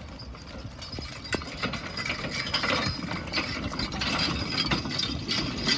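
Percheron horse's hooves clip-clopping in irregular steps, the knocks getting louder about a second in.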